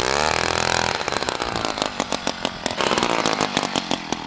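Gas ice auger's engine running as the auger bores into lake ice. Its pitch dips under load and climbs back within the first second, then it runs slow and uneven with sharp pops, fading near the end.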